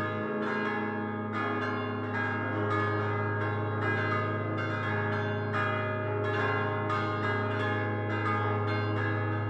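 Peal of five fixed church bells, cast by Prospero Barigozzi of Milan in 1928 and sounding C4, A♭3, E♭3, C3 and A♭2. Each bell is struck by a hand-swung clapper, giving a continuous run of overlapping strokes that ring on over a steady low hum.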